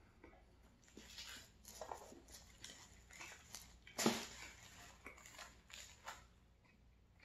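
A slice of pizza being torn from the pie, close up: the crisp crust crackling and rustling in a run of short noises, the loudest sharp crackle about four seconds in as the slice comes away.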